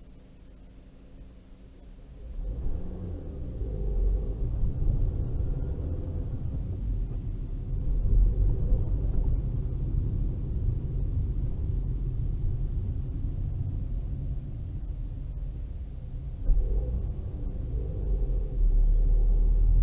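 Low rumble of a car's engine and tyres heard from inside the cabin: a quiet idle hum at first, then about two seconds in the car pulls away and the rumble rises and stays steady as it drives. A short sharp thump comes near the end.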